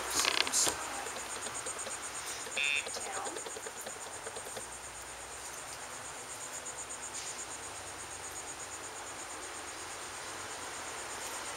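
Insects, most likely crickets, trilling in a steady high-pitched pulsing chorus. There is a brief louder noise in the first second and a short buzzy tone about two and a half seconds in.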